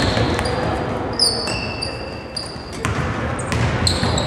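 Basketball game on an indoor court: the ball bouncing and shoes squeaking sharply on the floor, several squeaks from about a second in, over a steady background murmur.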